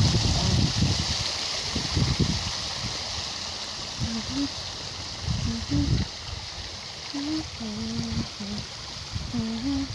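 Shallow water trickling and splashing over stones in a small man-made rock-lined stream, a steady hiss. Irregular low rumbles come and go underneath, most in the first few seconds.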